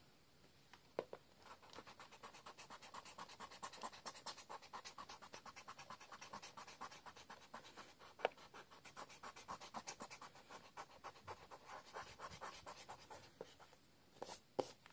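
A pencil's eraser scrubbing quickly back and forth on paper, rubbing out pencil sketch lines, in a fast even rhythm of several strokes a second that stops near the end.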